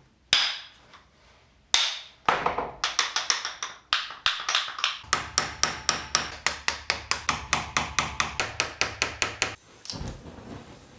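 Hammer blows on a Land Rover propshaft's universal joint, knocking the joint apart: a few single strikes, then a fast, even run of about three blows a second with a low hum underneath, stopping about a second before the end.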